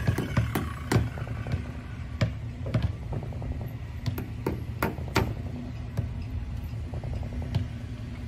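Irregular sharp knocks of hammering on a wooden boat hull, several blows a second at uneven spacing, over a steady low hum.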